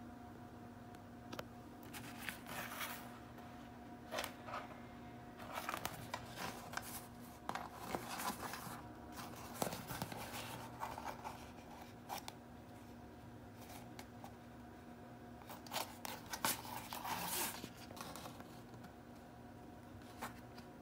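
A sheet of flex banner material being lifted and bent by hand, its stiff plastic surface rustling and crackling in irregular bursts, with a few quieter pauses between handlings.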